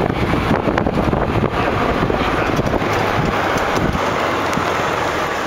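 Wind buffeting the camera's microphone while moving, a steady rough rumbling hiss that eases a little in the low end near the end.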